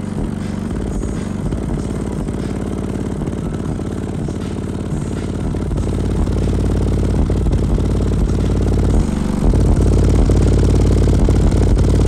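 DB Audio XTINCT 12 subwoofer playing bass-heavy music free air, with no enclosure, its cone making long excursions. The bass is loud and grows louder, stepping up about nine seconds in.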